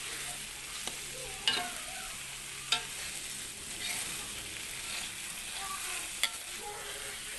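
Shrimp, corn, long beans and carrot sizzling steadily as they are stir-fried in a wok, the spatula scraping through the food, with three sharp knocks of the spatula against the pan.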